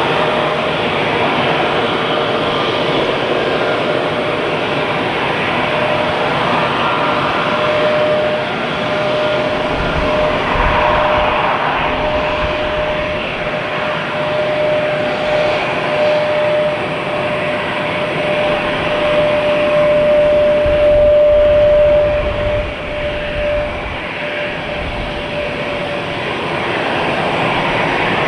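Airbus A320 jet engines running, a steady rush with a steady whine held through most of it and low rumble swelling up and easing off.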